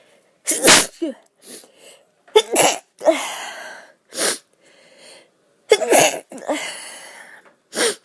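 A woman sneezing several times in a row, loud sudden sneezes with short breaths between them.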